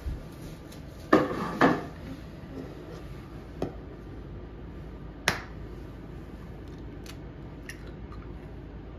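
Kitchen handling sounds at a mixing bowl: two loud knocks a little over a second in, then a few single sharp clicks, the loudest about five seconds in, as an egg is cracked over the bowl.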